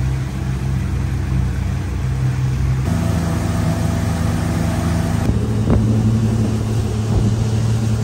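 Twin outboard motors driving a sport-fishing boat under way, a steady drone with the rush of wind and water over it. The engine pitch shifts abruptly twice, about three and five seconds in.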